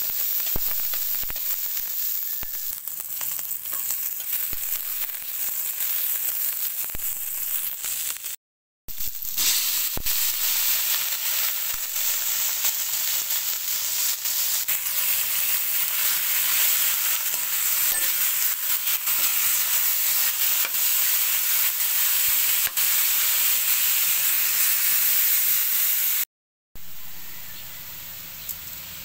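Sliced onion and ginger sizzling in hot oil in a metal wok, then raw sliced pork frying, a steady hiss with scattered clicks of a metal spatula against the wok in the first seconds. The sound cuts out for a moment twice, and is quieter after the second break.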